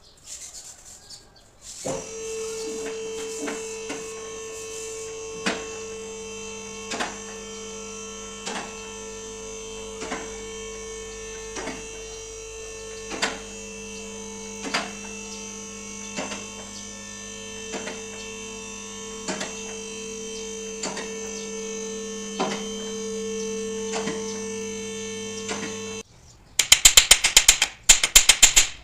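Electric car lift motor running steadily while it raises the car, with a safety-latch click about every second and a half; it stops a few seconds before the end. Then a ratchet wrench clicks rapidly and loudly.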